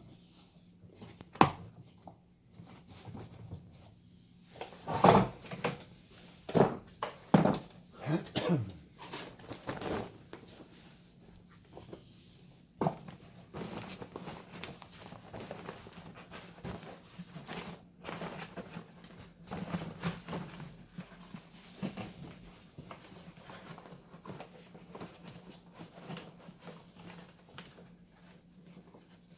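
Plastic parts of a Ridgid wet/dry vac being handled as its filter and dust bag are changed: scattered clicks and knocks, a run of scraping and squeaking about five to eight seconds in, and a steady low hum throughout.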